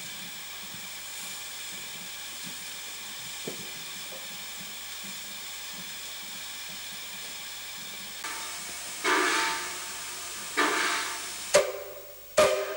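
Steam locomotive 1047, an ex-Queensland Government Railways narrow-gauge tank engine, hissing steadily with steam. From about eight seconds in come a series of loud, sudden blasts of steam roughly a second apart, each dying away, as steam blows from around its cylinders.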